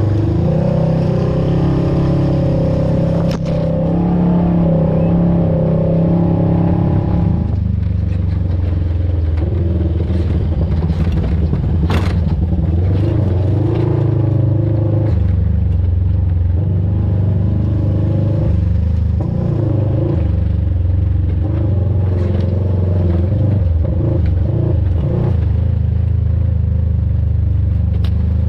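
Off-road vehicle's engine running on a trail, its pitch shifting as the throttle changes, with a few sharp knocks and some scraping, most clearly about 3 and 12 seconds in.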